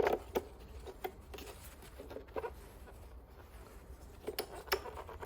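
Irregular light clicks and taps of plastic and glass as a bulb and its twist-lock bulb holder from a Mini R56 rear light cluster are handled, over a faint steady low hum.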